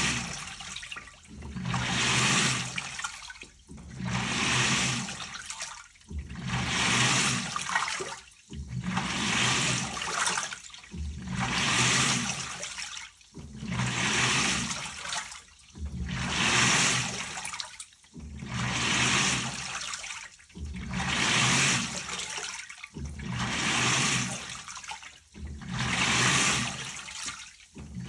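LG Turbodrum WTR807 top loader agitating a load: the direct-drive pulsator churns the water in regular swishing surges about every two and a half seconds, with a brief pause between each stroke.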